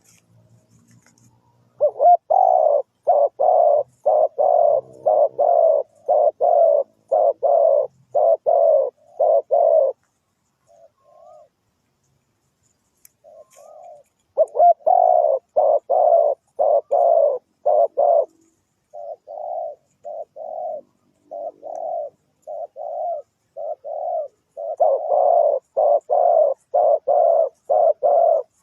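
Spotted dove cooing: runs of short coos repeated about two a second. The cooing breaks off for a few seconds about ten seconds in, then starts again.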